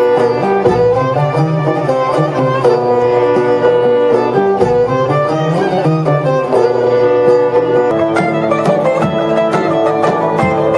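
Traditional Cappadocian dance music played on string instruments: a bowed, fiddle-like melody over plucked strings, with a steady rhythm of note attacks.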